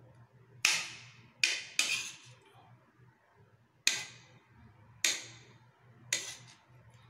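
A metal spoon clinking against a ceramic dinner plate while scooping rice and curry. There are six short, sharp clinks at uneven intervals.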